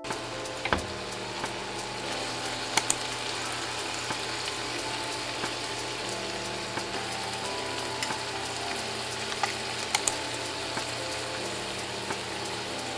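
Chopped meat sizzling gently in cream in a ceramic-coated frying pan, a steady frying hiss, with three sharp clicks against the pan.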